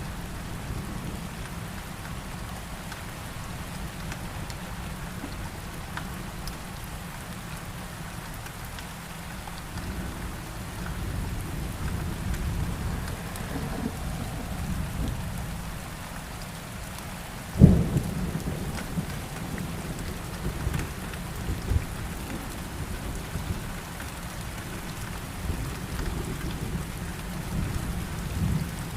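Thunderstorm: steady rain with low rolling thunder underneath. A sharp, loud thunder crack comes about two-thirds of the way in, followed by a few smaller cracks.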